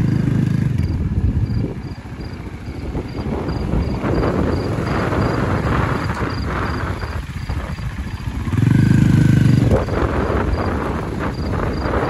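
Motorcycle engine revving hard in two bursts, once at the start and again about nine seconds in, as the bike is forced out of a slippery off-road patch. A steady rushing noise fills the gap between the revs.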